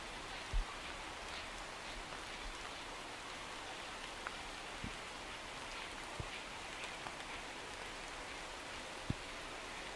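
Steady rain falling, with a handful of separate louder drops or drips, the first about half a second in.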